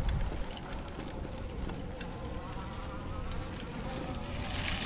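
Electric bike motor whining at a steady pitch while riding, over a low rumble from the trail.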